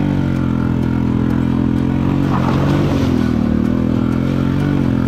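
Honda Ruckus scooter's small single-cylinder four-stroke engine running at a low, steady throttle while riding. Its note dips and rises slightly partway through.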